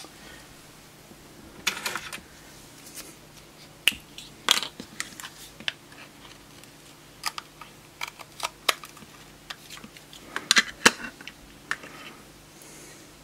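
Scattered sharp clicks and taps of a small digital power supply's case being handled and pried apart by hand, with a few louder clicks about two seconds in, at four and a half seconds and near the end as the top cover carrying the cooling fan comes away.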